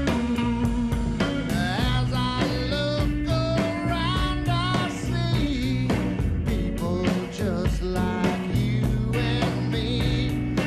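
Rockabilly band playing live: guitar, bass and drums with a steady beat, the guitar bending notes.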